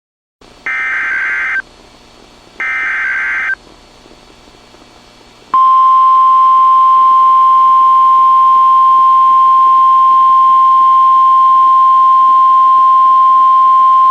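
Emergency Alert System activation for a severe thunderstorm warning: two short bursts of buzzy SAME header data tones, about two seconds apart. About five and a half seconds in they give way to a single steady alert tone held for about nine seconds, the signal that a warning message follows.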